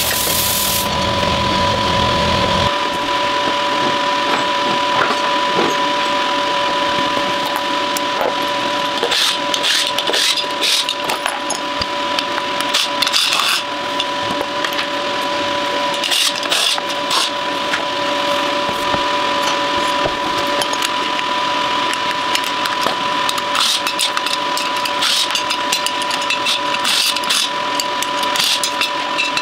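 An angle grinder working a steel wheel rim stops about a second in. After that come scattered clanks and rattles of a wheel, tyre and tools being handled, over a steady whine.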